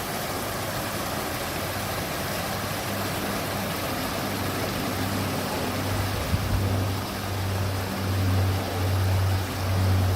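Water running and splashing steadily in a landscaped water garden. Under it, a low hum starts a few seconds in and grows louder, pulsing on and off about once a second.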